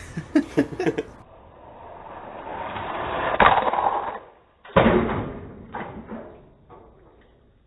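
Hot Wheels die-cast toy car's wheels rolling down a plastic track: a rolling rumble that builds to a peak about three and a half seconds in, then a second run that starts suddenly near five seconds and fades away. A few sharp clicks in the first second.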